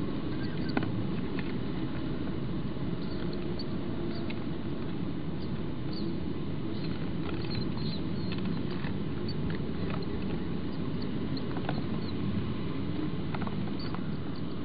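Common kestrel nestlings being fed in a nest box: scattered short, high squeaks and ticks from the chicks and their scrabbling over a steady low rumble.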